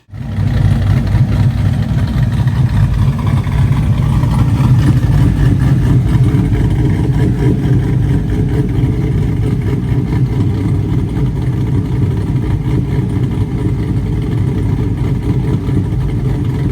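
Cammed LS1 V8 in a Camaro SS idling steadily through long-tube headers, with an uneven, lumpy beat from its BTR Stage 3 v2 camshaft.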